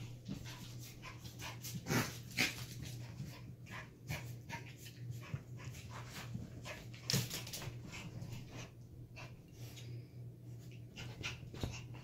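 Two miniature schnauzer puppies playing rough, panting, with a quick irregular patter of scuffles and paw clicks on the floor and a few louder thumps about two seconds in and again past halfway.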